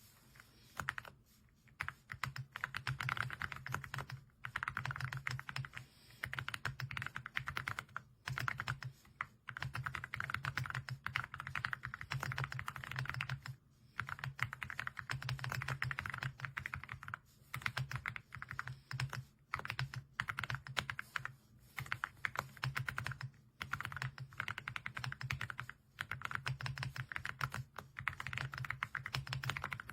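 Fast typing on an AULA F99 mechanical keyboard: a dense clatter of key presses in runs of a few seconds, broken by short pauses.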